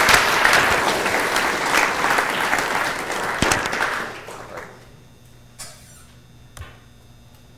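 Audience applauding, which tapers off and dies away about four to five seconds in, followed by a couple of faint knocks.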